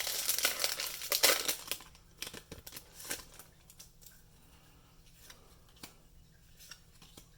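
Foil booster pack crinkling and tearing open for about two seconds, then quieter, scattered light clicks and slides of trading cards being handled.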